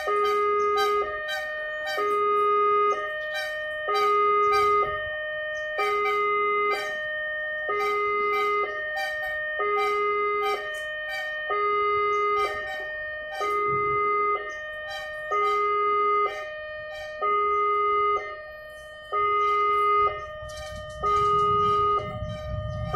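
Railway level-crossing electronic warning alarm sounding a repeating two-tone pattern, a low tone then a higher one, about every two seconds: the crossing is closed for an approaching train. A low rumble builds near the end.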